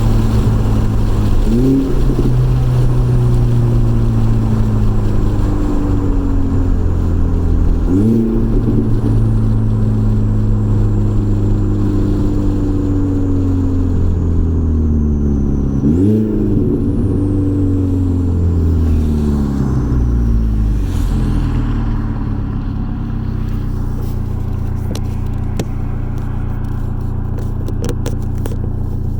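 Turbocharged four-cylinder engine of a B5 Audi A4 with its stock K03 turbo, heard while driving. The revs jump sharply three times and sink slowly after each, with a faint falling turbo whistle up high. The engine settles to a steady, slightly quieter run for the last several seconds.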